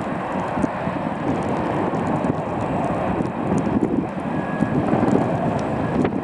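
Boeing 747-400 freighter's four GE CF6-80C2 turbofan engines running, a steady jet roar.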